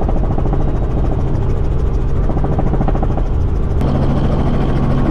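Helicopter rotor and engine noise heard from inside the cabin: a loud, steady, fast chop from the blades. Near the end the sound changes and steady tones join it.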